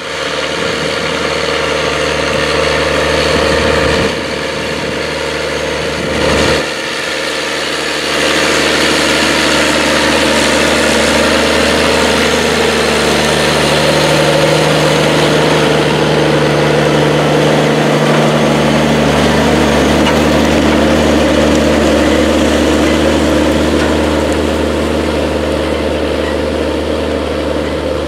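Diesel engine of a 535-horsepower Case IH Steiger 535 articulated tractor running steadily under tillage load as it pulls a coulter chisel through the soil. The sound drops briefly twice in the first seven seconds, and the engine note shifts slightly about eighteen seconds in.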